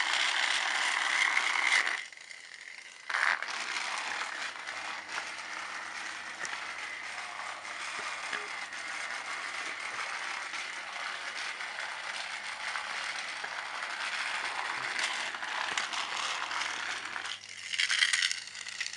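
Battery-powered Trackmaster Crash and Repair Thomas toy engine running along its plastic track: the small motor and gearbox give a steady ratcheting, clicking whir. It drops away for about a second two seconds in, comes back with a sharp knock, and gets louder again near the end.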